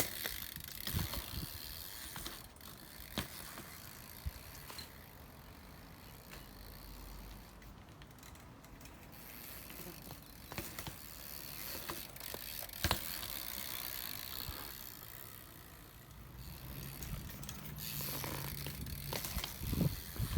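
BMX bike's rear hub ratcheting as it coasts, with scattered sharp knocks from the bike.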